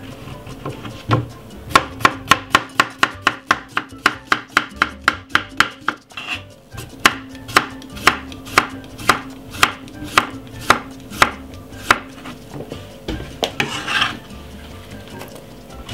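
Kitchen knife slicing a cucumber on a wooden chopping board: a quick, even run of knife strikes, about four a second, then after a short pause about six seconds in a slightly slower run, stopping about twelve seconds in.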